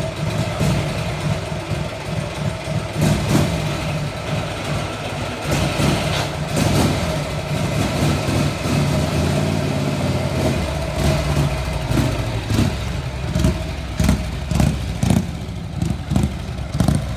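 1958 Harley-Davidson Panhead V-twin engine running, its level rising and falling unevenly.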